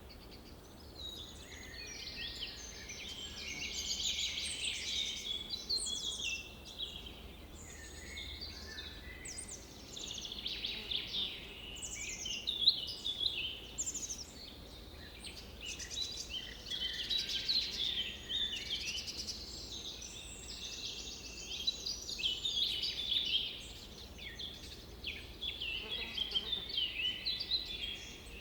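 A chorus of many birds chirping and singing at once, short calls and trills overlapping without a break.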